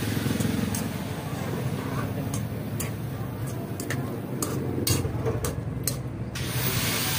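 A metal spoon clinking and scraping against a metal cooking pot as pork adobo with potatoes is stirred, giving irregular sharp clicks. A steady low hum and hiss run underneath.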